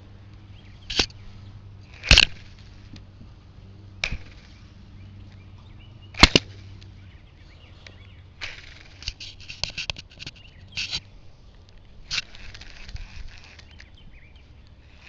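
A series of sharp single knocks a couple of seconds apart, then quicker runs of clicks and rattles over a faint low hum.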